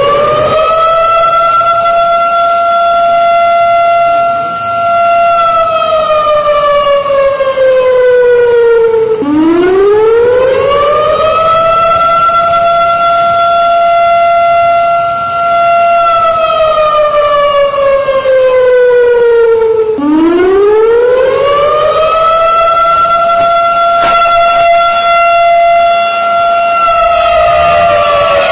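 Civil defence siren wailing in long repeating cycles about every ten seconds: each rises quickly in pitch, holds a steady high note for several seconds, then slides slowly down before starting again. It is sounded as a coronavirus 'red alert' telling people to stay in their homes.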